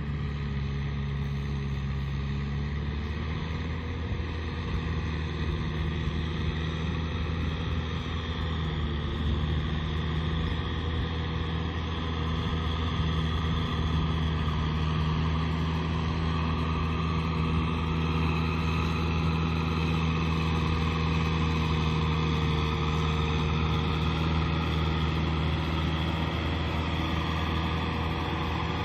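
Kubota M6040 SU tractor's four-cylinder diesel engine running steadily as it pulls a cultivator through a muddy rice paddy, getting somewhat louder about halfway through as it comes closer.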